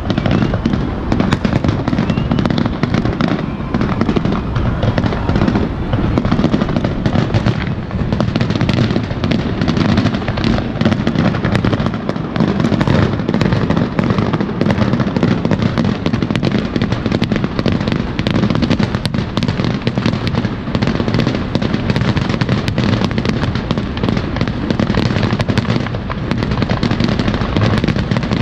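Fireworks finale: a rapid, nearly unbroken barrage of aerial shell bangs and crackle over a steady low rumble.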